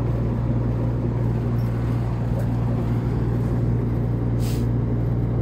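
R-22 rooftop air-conditioning unit running with a steady low hum while it is topped up with refrigerant: its pressures are low from a shortage of charge. A brief hiss about four and a half seconds in.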